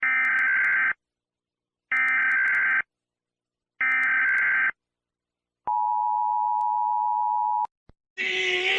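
Emergency Alert System broadcast alert: three one-second bursts of SAME header data tones about a second apart, then the EAS two-tone attention signal held steadily for about two seconds. A loud, pitched sound cuts in near the end.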